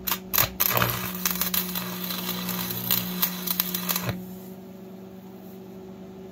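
Stick welding with an old 6013 rod on a Lincoln AC-225 transformer welder: a few sharp crackles as the rod is scratched to strike the arc, then a steady crackling hiss of the running arc that cuts off suddenly about four seconds in. The welder's transformer hum continues underneath.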